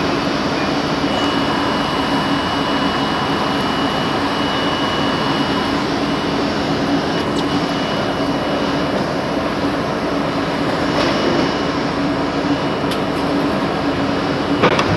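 Steady hum and rushing noise of an R32 subway car standing on an elevated line, its onboard electrical and ventilation equipment running, with a short sharp click near the end.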